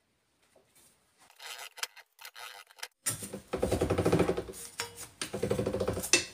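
Hand-cranked slip roll being turned with a sheet-steel cone blank running between its rollers. There are faint scrapes at first, then a loud grating rasp in two stretches from about three seconds in as the rollers turn and the steel rubs through them.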